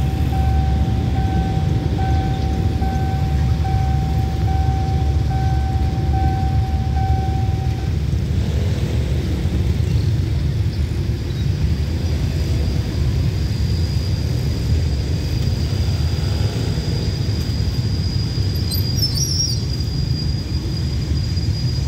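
Railway level-crossing warning signal chiming about once a second over the low rumble of a train pulling away. The chime stops about eight seconds in, and a thin, steady high whine comes in a few seconds later.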